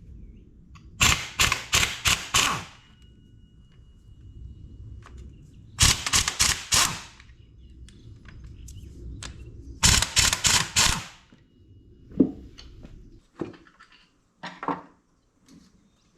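Hammer blows on engine parts: three quick runs of four to six sharp strikes each, then a few lighter knocks near the end.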